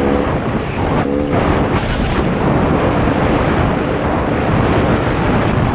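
Beta RR 300 two-stroke enduro motorcycle engine running under way, mixed with heavy wind noise on the helmet-mounted microphone; the engine note stands out briefly about a second in.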